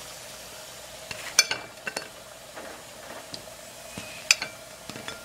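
Plantain pieces sizzling steadily in hot oil in a frying pan, with a few sharp clinks of a utensil against the pan, the loudest about a second and a half in and again about four seconds in.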